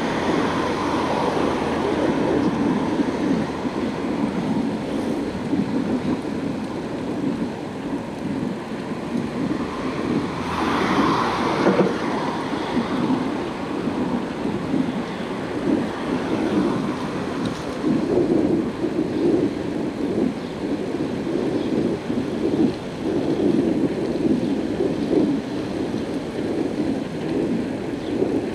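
Wind buffeting the microphone of a moving bicycle, a rough, uneven rumble mixed with tyre and road noise. There is a brief louder rush about eleven seconds in.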